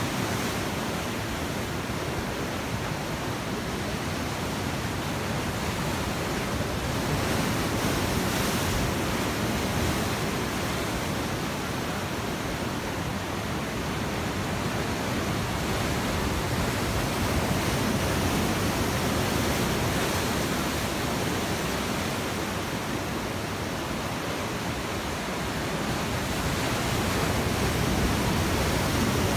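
Rough sea surf breaking on rocks and washing through them in foam: a steady rush of water that swells louder every ten seconds or so as the larger waves break.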